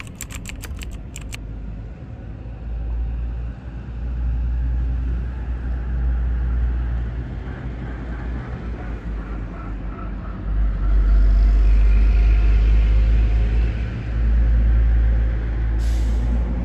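Boeing 737-800 jet engines at takeoff thrust: a deep rumble that grows over the first few seconds and is loudest from about ten seconds in, with a faint engine whine above it.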